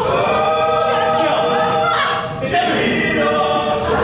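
Several voices singing together in long held notes, choir-like, with a short break about halfway through.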